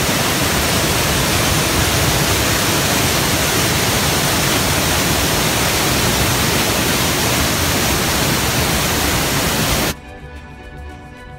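Loud, steady roar of a waterfall, white water crashing over rock. About ten seconds in it cuts off abruptly to a much quieter stretch of faint steady tones.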